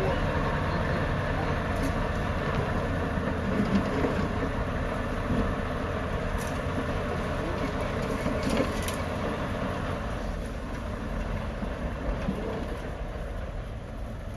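Bulldozer's diesel engine running under load with steady track noise, with a few sharp metallic clanks past the middle.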